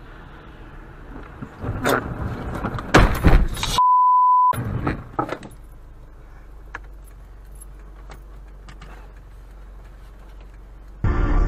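Car collision picked up by a dash cam on a snowy road: low road noise, then a run of loud bangs and crunches about two seconds in, a short steady censor beep that blanks the sound for under a second, and a few more knocks before a low steady hum once the car has stopped.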